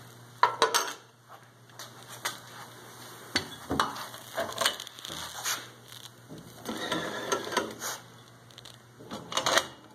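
Irregular clinks, clicks and knocks of a glass mason jar being handled and set into the metal carriage of a homemade cylindrical screen printer, with rattles from its drawer-slide frame.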